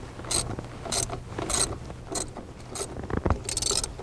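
Ratchet socket wrench clicking in short strokes, about two a second, with a quicker run near the end, as the throttle body mounting bolts are snugged down.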